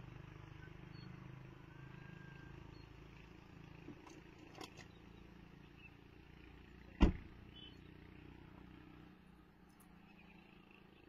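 Faint outdoor background with a low steady rumble that drops a little near the end, a couple of small clicks, and one sharp, loud knock about seven seconds in.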